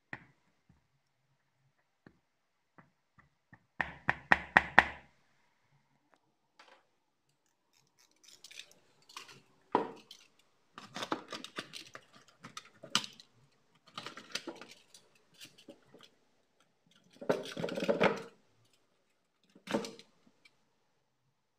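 Clinks, clicks and rattles from hands and a screwdriver working on a small plastic speaker box while taking apart its burnt-out driver. They come in short irregular bursts, the loudest a quick rattle about four seconds in.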